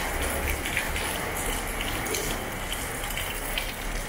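Water pouring and gushing in heavy rain: a steady rushing noise with scattered light ticks.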